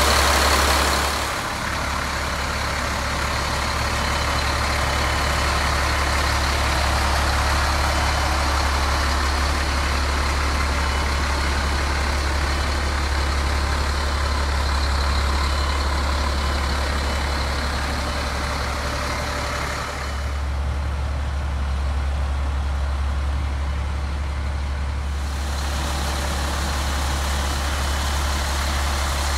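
Caterpillar 3126 diesel engine of a Freightliner FL70 truck idling steadily: a low, even drone with a hiss over it.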